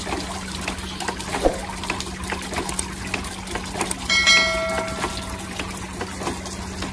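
Water trickling and splashing from a small pond fountain and a dripping water-wheel feature, with a steady low hum beneath. About four seconds in comes a short ringing chime, the sound effect of a subscribe-button animation.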